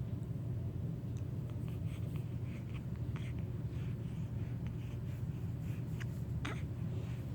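Baby hiccuping: one sharp hiccup about six and a half seconds in, with faint small clicks before it, over a steady low hum.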